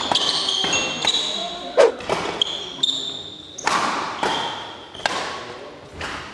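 Badminton doubles rally in an echoing hall: rackets hitting the shuttlecock with sharp smacks about one to two a second, the hardest a little under two seconds in, and sneakers squeaking on the court floor between the hits.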